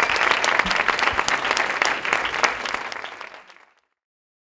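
Audience applauding, many hands clapping at once; the applause fades and stops about three and a half seconds in.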